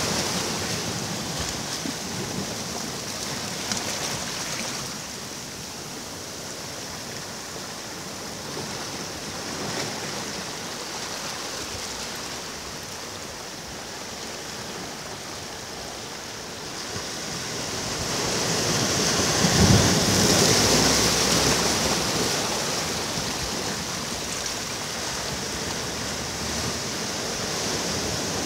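Ocean waves breaking and washing up a beach, a steady hiss of surf that swells into a louder wave about two-thirds of the way through and then recedes.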